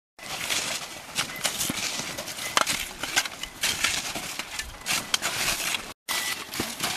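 Several avalanche shovels chopping into and scraping snow, with irregular crunches and knocks. The sound breaks off briefly about six seconds in.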